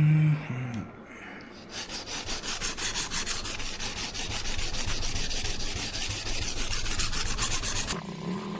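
Knife blade stroked back and forth on a coarse whetstone (Naniwa Chosera 400) in quick, even scraping strokes, about three to four a second, to raise a burr on a fresh edge. The strokes start about two seconds in and stop shortly before the end, after a brief low tone at the start.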